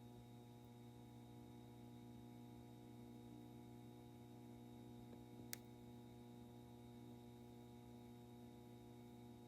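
Near silence: a faint steady electrical hum, with a single faint click about five and a half seconds in.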